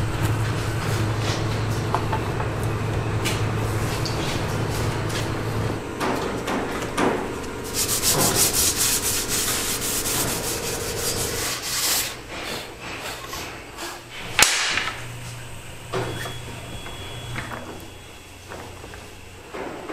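A steel hand blade scraping thin shavings off a wooden sword piece, over a steady low hum. Midway comes a burst of fast rubbing strokes on the wood, then a sharp knock and a few lighter knocks as the wooden handle piece is handled in a metal bench vise.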